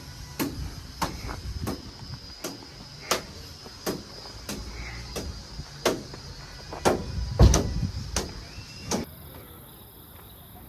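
A string of sharp, irregular clicks and knocks, roughly one or two a second, over a faint steady high whine and a low rumble; the background changes abruptly near the end.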